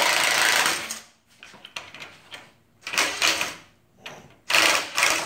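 Cordless drill running in three bursts as it backs screws out of a wooden shipping crate: a longer run ending about a second in, a short one at about three seconds, and another near the end, with faint clicks of wood and screws between them.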